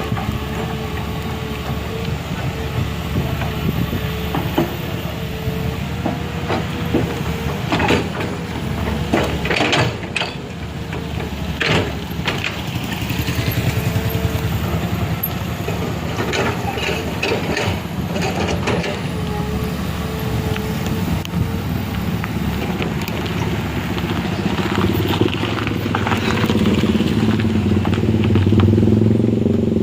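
Heavy vehicle engine running with a steady low rumble and a wavering whine, with scattered knocks and clatter. The engine grows louder near the end.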